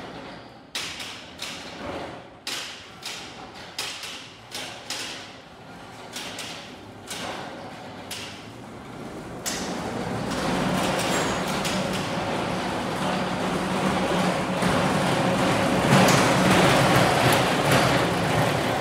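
BT RSS 1200 electric reach truck on the move. For the first nine seconds there is a run of evenly spaced knocks, about one every 0.6 s. Then the truck's electric drive runs with a steady hum that grows louder as it comes closer.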